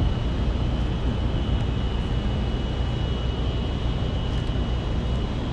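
Steady city street ambience: a low traffic rumble with a faint, steady high whine over it.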